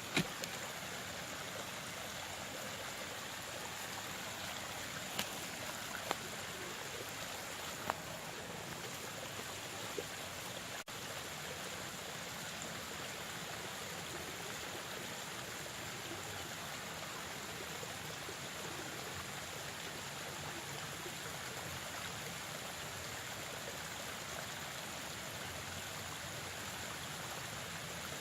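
Steady rush of running stream water, with a few faint sharp clicks in the first third.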